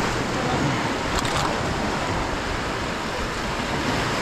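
Steady rush of sea surf washing against rocks, mixed with wind buffeting the microphone.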